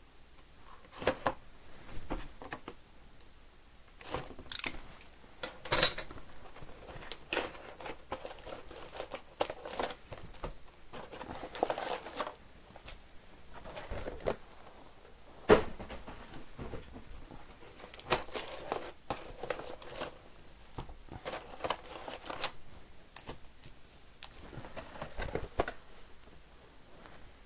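Sealed trading-card hobby boxes being opened by hand: plastic wrap cut and torn, and packaging crinkling, with irregular sharp clicks and snaps. The loudest snap comes about fifteen seconds in.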